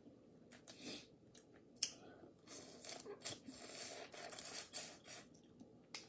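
Boiled crawfish being eaten: faint snaps and crackles of the shells being broken and peeled, and chewing, with a longer rustling stretch in the middle.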